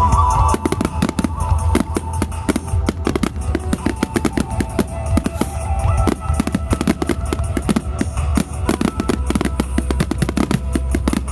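Fireworks bursting and crackling in rapid, dense succession from about half a second in, over music with held tones and a heavy low hum.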